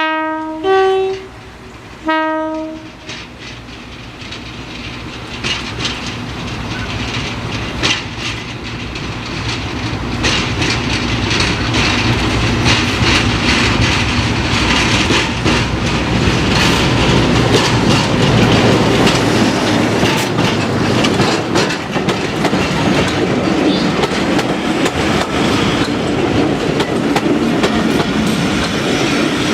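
Heritage diesel locomotive sounding its two-tone horn in three short blasts, low, high, low, then drawing nearer under power, its engine and wheel noise growing steadily louder with rapid clicking of wheels over the rail joints.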